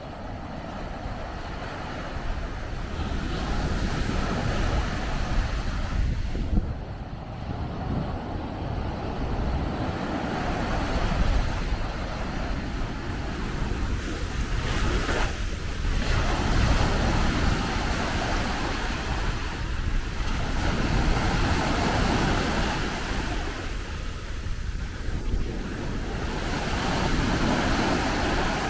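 Surf breaking and washing up a sandy beach, swelling and ebbing as each wave comes in, with wind rumbling on the microphone.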